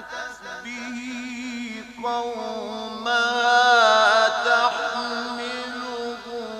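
A man reciting the Quran in a melodic, drawn-out style, holding long ornamented notes with a wavering pitch. About two and three seconds in his voice steps up to higher, louder notes, loudest before it settles back down.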